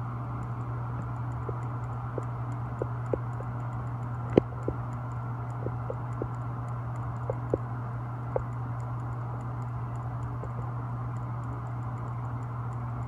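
A steady low hum with a scattering of light, irregular clicks through the middle, the sharpest about four seconds in.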